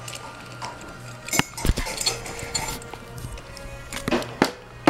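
Clinks, knocks and rustling from small parts being handled while a ceiling fan is worked on, in two clusters about a second and a half in and near the end, over a steady hum.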